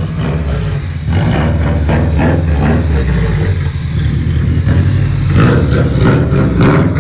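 A motor vehicle's engine running loudly with a low, steady rumble, getting louder about a second in.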